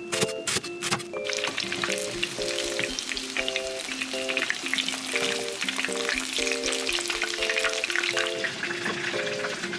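Quick knife strokes shredding cabbage on a cutting board, then, about a second in, breaded pork cutlets (tonkatsu) deep-frying in a pan of hot oil with a dense crackling sizzle. Light background music plays throughout.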